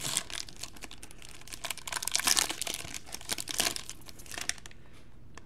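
Foil wrapper of a Topps Strata football card pack crinkling as it is opened by hand, a dense crackle that dies down about four and a half seconds in.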